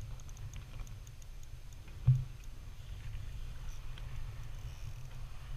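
Spinning fishing reel ticking faintly and quickly in the first second or two, under load from a hooked fish on a bent rod, over a steady low rumble; a single dull thump about two seconds in.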